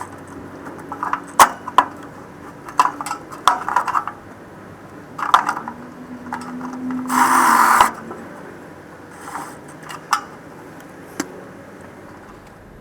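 Scattered sharp clicks, taps and short scrapes of hand tools and wiring being worked in an air conditioner's electrical compartment, with a longer rustling scrape about seven seconds in.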